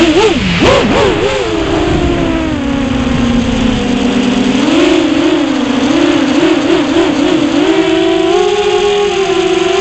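6-inch FPV freestyle quadcopter's brushless motors (2407 1850KV on 6S) with Ethix K2 props whining, heard close up from the onboard camera. The pitch swoops up and down sharply in the first second and a half with throttle punches, settles lower, wavers rapidly in the middle and climbs near the end, over a steady rush of wind noise.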